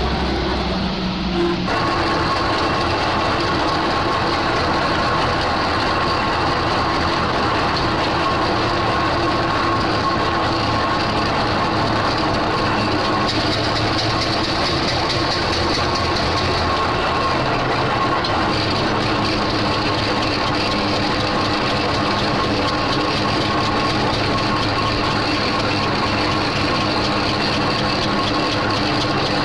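Steam road engine running along a road, heard from its footplate: a steady fast clatter of the motion and gearing with a faint steady whine through it.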